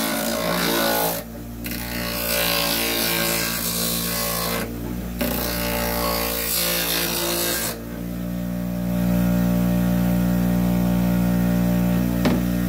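A Qualiforte (Somar) 6-inch, 300 W bench grinder motor turning a homemade sanding disc hums steadily while the edge of a wooden board is pressed against the disc in three passes, each a few seconds of gritty sanding noise. From about eight seconds in the motor runs free, with a single light knock near the end.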